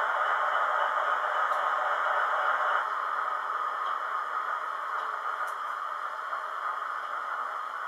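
Howes sound decoder in a Hornby Class 60 model locomotive playing its diesel engine sound at standstill through the model's small speaker: a steady hissing hum with no bass, dropping a little in level about three seconds in.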